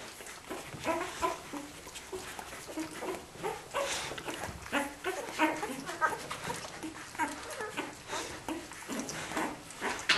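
A litter of week-old Australian Kelpie puppies squeaking and whimpering while they nurse. Many short, high calls overlap one another throughout.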